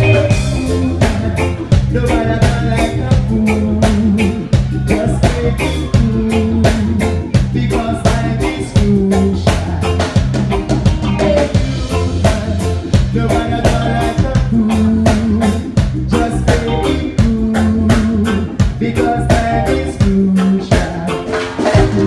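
Live band playing through a stage PA: a drum kit keeping a steady beat, a strong bass-guitar line, electric guitar and keyboards, in a ska/reggae style.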